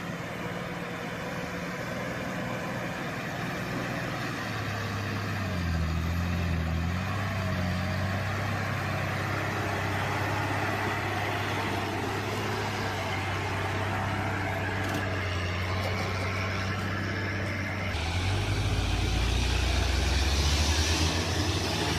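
A motor vehicle's engine running steadily, its pitch dipping briefly about six seconds in. Near the end the sound changes suddenly to a deeper, louder engine rumble.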